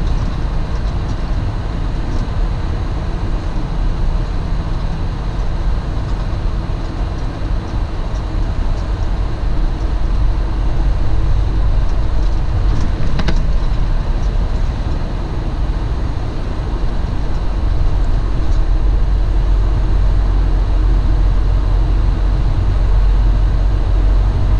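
Semi truck's diesel engine running, with a steady low rumble of engine and road noise heard inside the cab, and a single brief click about halfway through.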